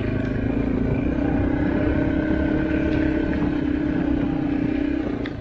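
Yamaha dirt bike engine running at a steady pitch under throttle, easing off about five seconds in.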